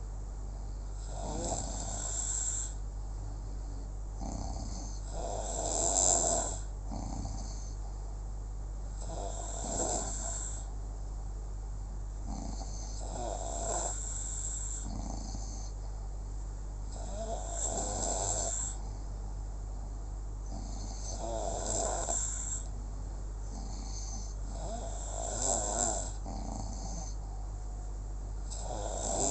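Snoring, one snore about every four seconds, over a steady low hum.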